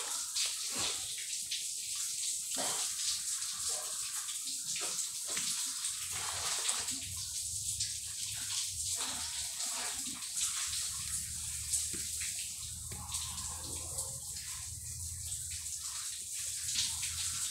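Close-up eating sounds: wet chewing, lip smacks and fingers working in rice and stewed milkfish (paksiw na bangus), heard as many short sharp clicks over a steady hiss.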